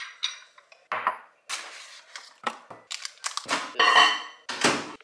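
Kitchen dishes and cookware clattering as they are taken out and handled: a run of knocks and clinks, busiest and loudest in the last two seconds, with a ringing clink near the end.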